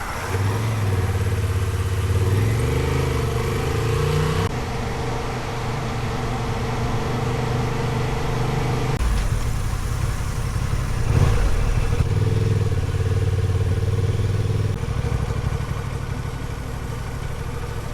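Honda XL750 Transalp parallel-twin motorcycle engine running under way, its note climbing and stepping down a few times as the revs change.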